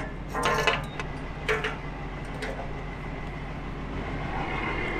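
Metal clanks and clicks as the cap of a reefer trailer's diesel fuel tank is unscrewed and the fuel nozzle is brought to the filler, mostly in the first two seconds. A steady low diesel idle hums underneath, and a faint thin whine with a rising hiss comes in toward the end as fueling begins.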